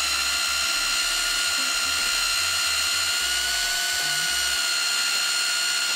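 Aegon AHD 201 rotary hammer drill running at steady speed with a high whine as a wood-boring bit cuts a hole into a wooden beam.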